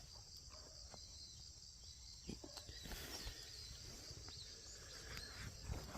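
Crickets chirping in a steady, faint, high pulsing trill, with a few soft knocks and low rumble underneath.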